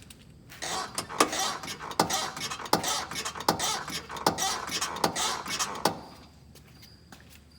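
Front suspension of a 2000 GMC Jimmy being rocked up and down by hand, creaking with a sharp pop on each rock, about seven times at a steady pace before stopping near the end. The parts are all brand new and the cause of the pop is unknown to the owner.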